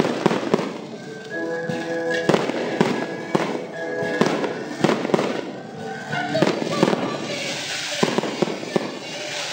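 Fireworks display going off: a rapid, irregular series of sharp bangs and crackles from bursting shells. A louder hiss joins in over the last couple of seconds as fountains spray.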